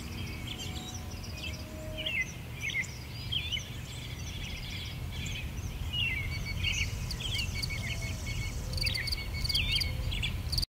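Several songbirds chirping and warbling over a steady low rumble of outdoor background noise, with a high buzzing trill joining about seven seconds in. The sound cuts off abruptly at the very end.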